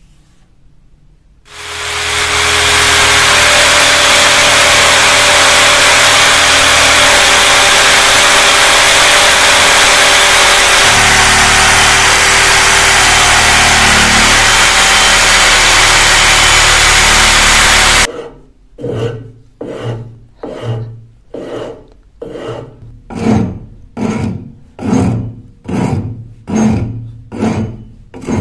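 A power tool runs loudly and steadily for about sixteen seconds, its pitch shifting slightly partway through, then stops abruptly. It is followed by rhythmic hand-filing strokes, about one a second, each a short rasping push that grows louder toward the end.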